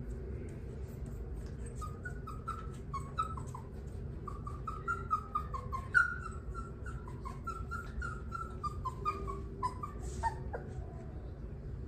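A very young puppy whining: a string of short, high cries, each dropping in pitch, a couple a second, starting about two seconds in and stopping near the end. It is stress whining from a puppy that cannot find its way around a barrier to its food.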